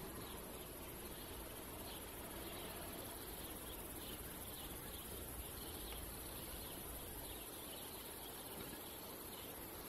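Faint quiet outdoor ambience: a steady high-pitched insect buzz with soft, repeated chirps and a low background rumble.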